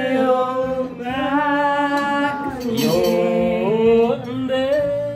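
Men singing a song in a Flores language, holding long drawn-out notes in phrases of about a second or more each.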